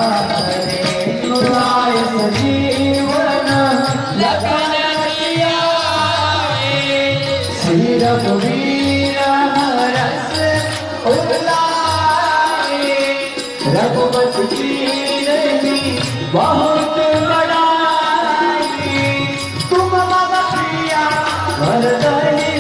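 Group devotional aarti singing by young male voices through microphones, with a harmonium and a steady percussion beat.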